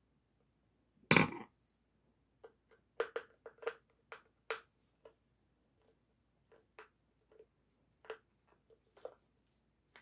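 Plastic clicks and knocks from an Amana washing machine drain pump being worked by hand, with one louder clatter about a second in and then irregular small clicks and taps.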